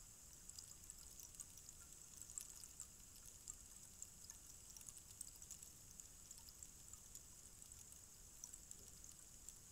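Tall bamboo rainstick standing upright, its filling trickling down inside as a faint, continuous patter of tiny ticks.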